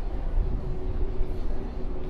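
Steady low rumble of cruise-ship ambient noise with a faint constant hum underneath.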